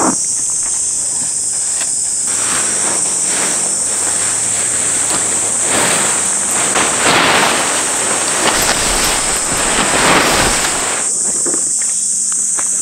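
Tarp fabric rustling and crumpling as it is pulled out of its stuff sack and shaken out. The rustling starts about two seconds in and stops about a second before the end, over a steady high-pitched insect drone.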